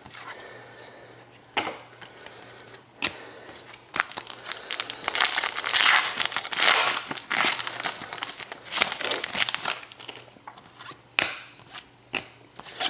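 A trading card pack's wrapper being torn open and crinkled, with the dense crinkling heaviest through the middle. Two sharp taps come in the first few seconds.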